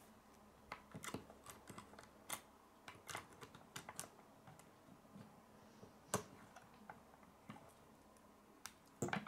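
Plastic K'nex pieces clicking and snapping as they are handled and pressed into place on the model: faint, irregular clicks, with a sharper snap about six seconds in and a quick cluster near the end.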